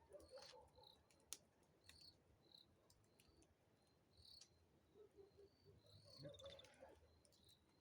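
Faint crickets chirping in short, high chirps about once a second, with a few scattered clicks.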